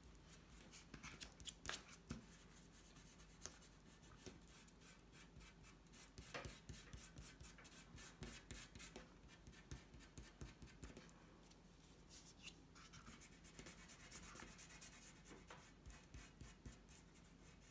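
Fingertips rubbing oil pastel into paper to blend the colours: faint, irregular brushing and scratching strokes.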